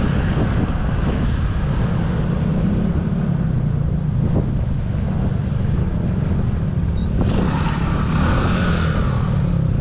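Honda ADV150 scooter's single-cylinder engine running at riding speed, with wind buffeting the microphone. About seven seconds in, a higher whine rises and then fades.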